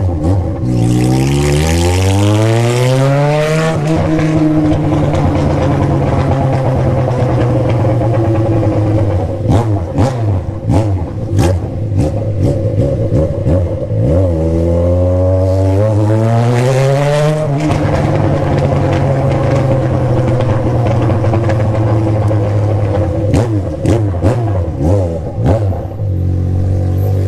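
Yamaha FZ6's 600 cc inline-four engine revving up twice. Each time the pitch climbs quickly and is held high for several seconds. It drops back to a lower steady note near the end, with scattered sharp clicks and pops through it.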